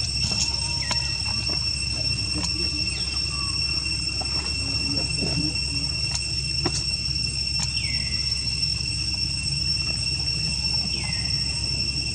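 Steady high drone of insects, two constant high tones, over a low steady rumble. A few short calls slide downward in pitch, about three seconds in, near eight seconds and near eleven seconds, with faint scattered clicks.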